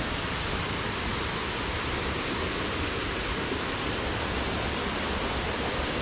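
River water rushing over rocks: a steady, even noise.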